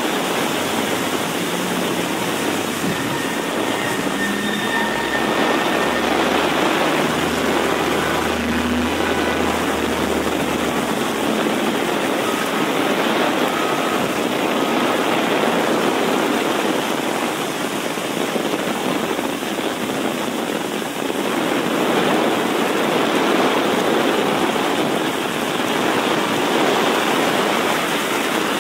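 Heavy rain pouring down steadily on a flooded city street, a dense, even hiss of downpour and running water. A low engine rumble from traffic sits under it for about the first ten seconds, then fades.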